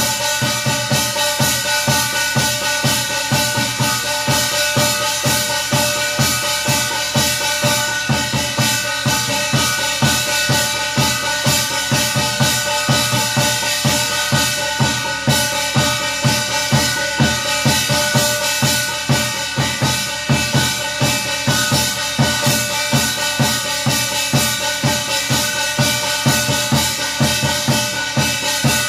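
Korean shaman's buk barrel drum and small brass gong beaten in a quick, steady beat, the gong ringing on between strokes, as accompaniment to a gosa ritual chant.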